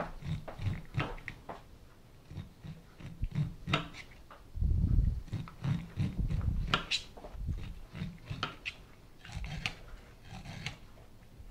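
A flat, non-serrated kitchen knife sliding down cooked ears of corn, cutting the kernels off in repeated short scraping strokes, with taps of the blade on the cutting board. The loudest part is a low thump about halfway through.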